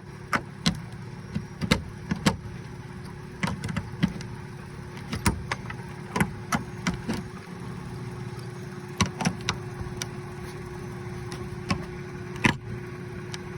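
Nails being pried and knocked out of a steel roof anchor with a hammer: irregular sharp knocks and taps, about a dozen, some in quick pairs, the last one near the end being the loudest. A steady hum runs underneath.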